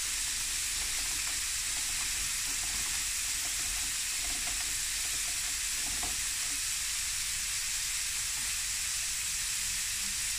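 Prawns frying in coconut oil in a stainless-steel pan, a steady, even sizzle.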